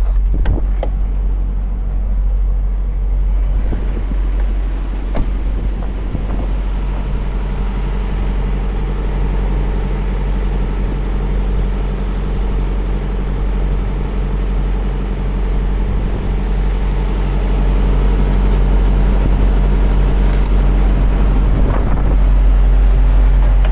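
Diesel engine idling with a steady low hum, a few faint clicks heard over it.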